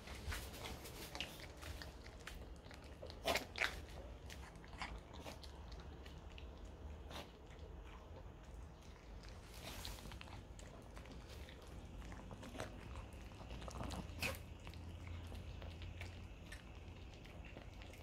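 A Chihuahua chewing a hard treat: irregular crunches and tooth clicks, the loudest a pair about three seconds in.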